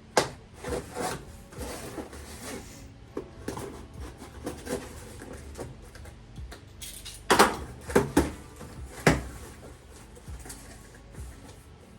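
A wiring harness kit being unpacked by hand: rustling and scraping of packaging and parts, with a few sharp clacks about seven to nine seconds in.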